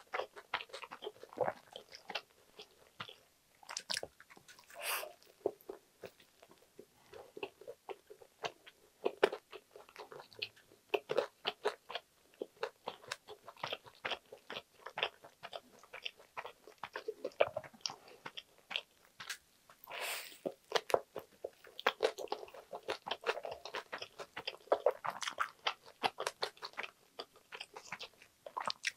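Close-up chewing of a butter-toasted sandwich with crisp lettuce, spam and egg: steady irregular crunching of toast and lettuce, with a few louder bites.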